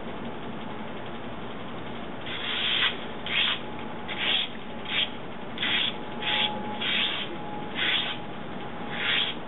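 Hand saw cutting through palm wood, back-and-forth rasping strokes at about one and a half per second, starting about two seconds in over a steady background hum.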